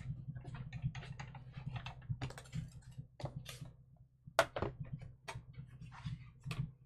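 Irregular light clicks, taps and rustles of craft supplies and tools being handled on a tabletop, a few louder knocks about four and a half seconds in, over a steady low hum.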